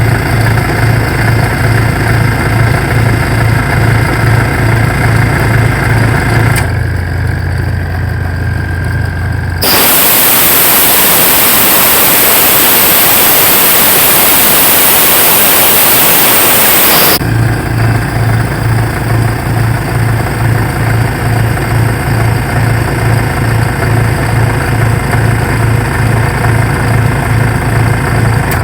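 Yanmar YGC6SS engine generator-air compressor running with a low throb that pulses about twice a second. About ten seconds in, a loud, even hiss of compressed air blowing out begins and lasts about seven seconds, then cuts off and the pulsing running resumes.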